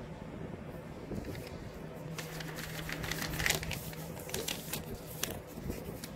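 Quick crackling clicks and rustling of fabric, thread and stuffing being handled while hand-sewing a plush toy. It comes as a dense patch lasting about three seconds, starting about two seconds in.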